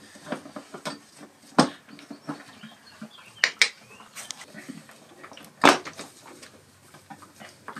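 Scattered clicks and knocks of small metal parts and tools being handled on a workbench, with three or four sharp knocks standing out among lighter ticks.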